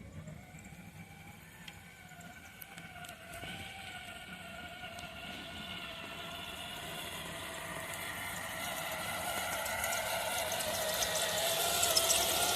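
Traxxas Defender 1:10 RC truck's electric motor and geared drivetrain whining, the pitch wavering up and down with the throttle and growing steadily louder.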